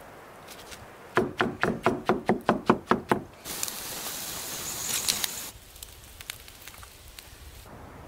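A quick, even run of about ten sharp knocks, around five a second, followed by about two seconds of hissing.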